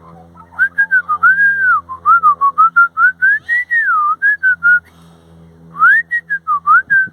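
Loud, tuneful whistling: a run of clear single notes gliding up and down, a pause of about a second, then a few more notes.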